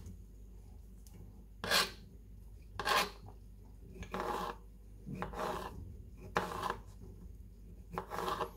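Kitchen knife slicing pickled gherkins into strips on a plastic cutting board: about seven short rasping cuts, unevenly spaced, roughly one a second.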